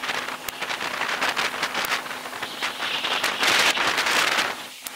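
Gusty wind on the microphone, a rushing noise that swells about three seconds in, with scattered sharp ticks and knocks through it.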